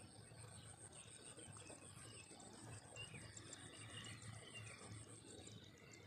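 Faint field ambience: a steady high-pitched insect drone that stops shortly before the end, with scattered small bird chirps and a low rumble underneath.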